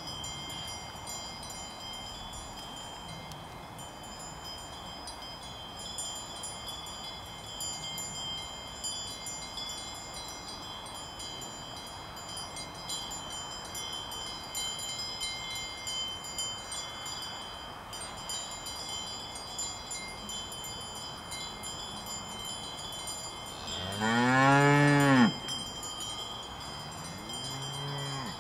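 Cowbells on grazing Fleckvieh cows ringing and chiming steadily. About three-quarters of the way through, one cow gives a loud moo that rises and then falls in pitch, and a shorter, quieter moo follows near the end.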